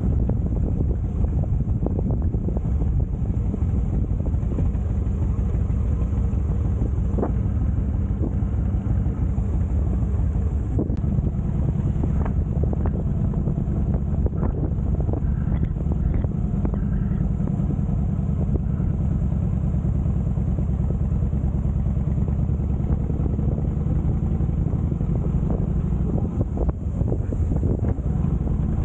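Harley-Davidson Heritage Softail Classic V-twin engine running steadily while the motorcycle is ridden, a constant low engine note.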